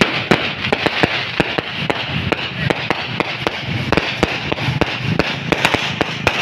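Many fireworks and firecrackers going off at once: a dense, continuous crackle of sharp bangs, several a second, over a steady background rumble.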